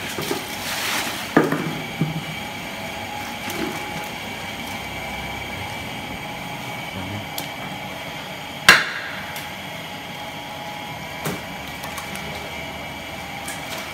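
Butchers' cleaver and knives working pig carcasses: a handful of sharp chopping knocks, the loudest about two-thirds of the way through, over a steady background hum.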